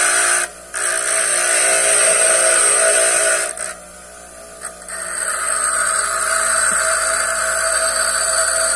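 Bench grinder running while the tip of a carbide-tipped (vídia) masonry drill bit is ground against its wheel to sharpen it, a steady grinding hiss over the motor's hum. The grinding drops out twice, briefly about half a second in and again for over a second a little past the middle.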